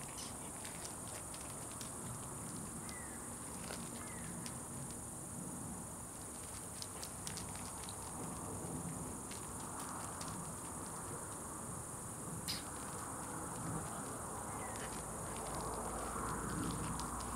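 Steady high-pitched chirring of insects in the grass, with faint scattered clicks.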